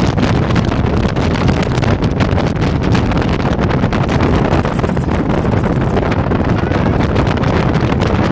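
Heavy wind buffeting on the microphone over the steady run of a speedboat's engine and rushing water as the boat travels at speed.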